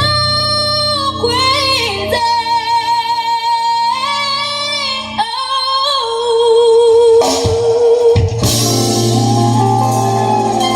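A recorded song played loud through a DIY passive line array and dual-18-inch subwoofer: a female voice sings long held notes, one with a wide vibrato about two-thirds of the way through, and then the fuller band with bass comes back in.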